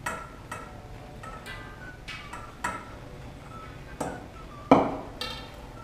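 Metal flour sieve knocking against a stainless steel mixing bowl as flour is added a little at a time: about ten irregular clinks, each ringing briefly, the loudest near the end.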